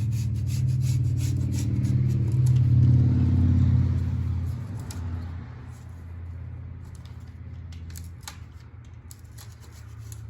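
Screen spline roller tool's rounded wheel rolling along an aluminium screen frame, pressing the new mesh down into the spline channel: a low rolling rumble, loudest for the first four seconds or so and then quieter, with small clicks and ticks throughout.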